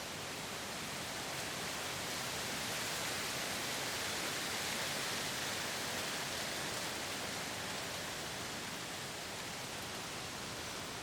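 Steady outdoor rushing noise with no distinct events, swelling a little midway through and easing off again.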